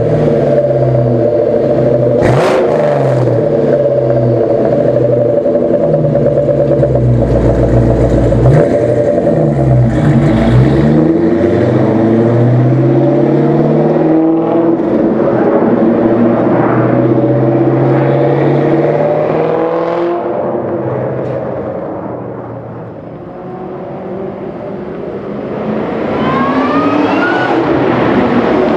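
2003 Mustang SVT Cobra's supercharged 4.6-litre V8 through an X-pipe and 3-inch MAC catback exhaust, revving up and down several times, then running steadily and fading as the car drives away down the street. It grows louder again near the end as the car accelerates back.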